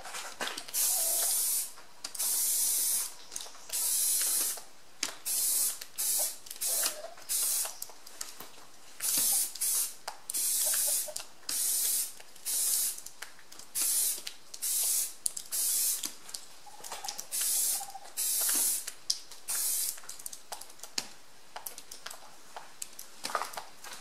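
Rust-Oleum high-temperature engine enamel aerosol can spraying in a run of about twenty short bursts, each a hiss of half a second to a second, with light clicks between them. This is the topcoat going on over primer. The bursts stop about four-fifths of the way through.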